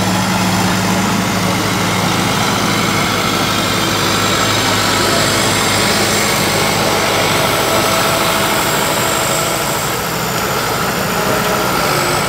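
Tractor engine running steadily under work, pulling a rear-mounted disc implement through the soil.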